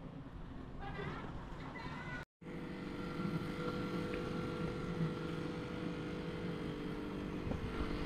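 A steady machine hum with several held tones, like a motor or engine running without change. It cuts in suddenly about two seconds in.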